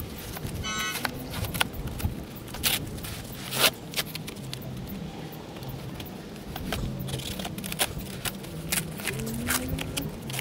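Cardboard shipping box being cut and torn open with a pocket knife: scattered scrapes, rips and taps as the corner is worked loose.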